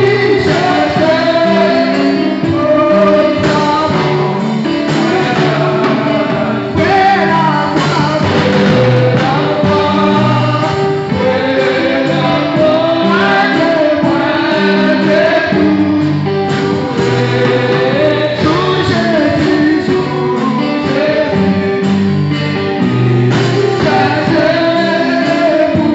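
A woman singing a gospel hymn into a microphone over amplified instrumental accompaniment with guitar and a steady bass line.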